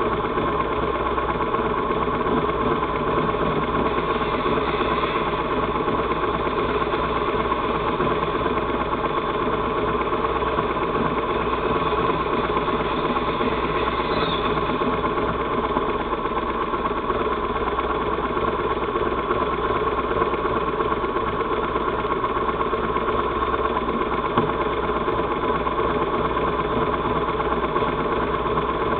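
Sport-motorcycle engines idling steadily close by, with faint brief rising revs from bikes further up the lane about 5 and 14 seconds in.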